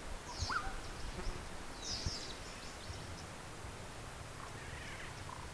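Bush ambience: a few short, high bird chirps about half a second and two seconds in, with fainter calls near the end, over a low steady rumble.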